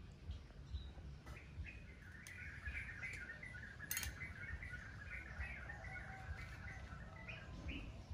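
Birds chirping and twittering in a rapid, continuous run of short calls, with a single sharp click about four seconds in.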